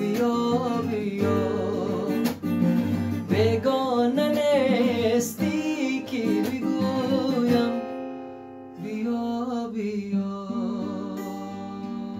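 A man singing a slow Persian-language song, accompanying himself on acoustic guitar, with wavering, drawn-out notes. The singing eases off briefly about two-thirds of the way through and then carries on with long held notes.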